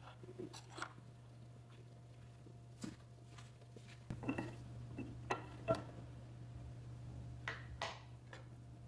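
Light, scattered knocks and clinks of a ceramic bowl and tableware being handled on a wooden tray, about eight to ten separate taps over a low steady hum.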